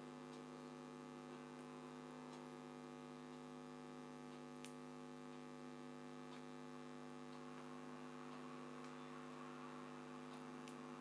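Faint, steady electrical hum made of several steady tones, with a few faint ticks.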